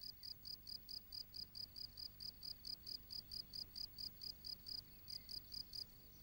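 A cricket chirping steadily in the grass: a faint, even train of short high-pitched chirps, about five a second.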